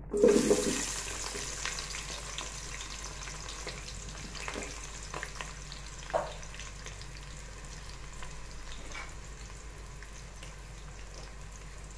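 Sliced onions dropped into hot oil and ghee: a loud burst of sizzling as they land, easing into a steady frying sizzle with a few sharp clicks.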